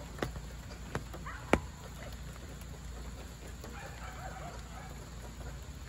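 Rain: large drops falling from overhanging trees tick sharply and irregularly on a car's body, one much louder tick about a second and a half in, over a steady hiss of rain. Faint distant calls around the middle.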